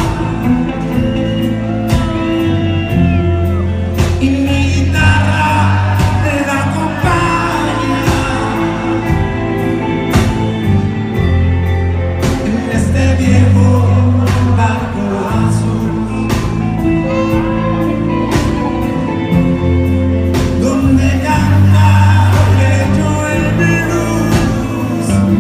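Live rock band playing a song: electric guitars, bass guitar and a drum kit keeping a steady beat, with a singer on lead vocals.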